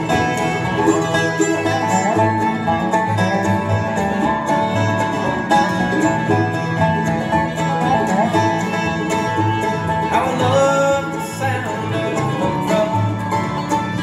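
Bluegrass band playing an instrumental break live, with banjo, guitars, fiddle and upright bass over a steady bass pulse.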